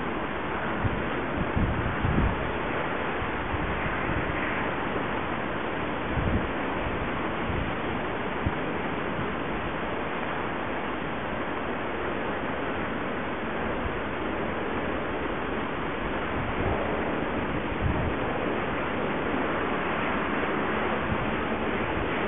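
Steady wind noise on the microphone, with a few low buffeting gusts.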